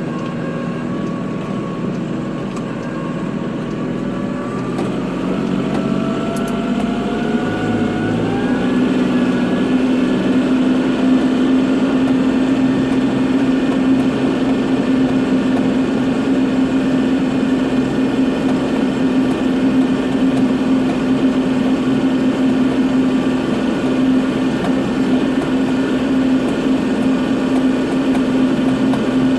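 Kubota tractor's diesel engine running, its pitch rising over a few seconds about a quarter of the way in and then holding steady at higher revs.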